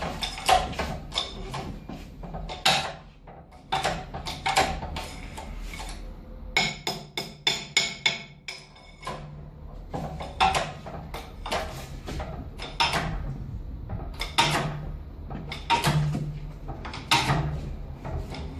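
Hammer striking metal in many irregular blows, a few a second, some ringing, as a worn wheel bearing and hub are knocked out and fitted by hand.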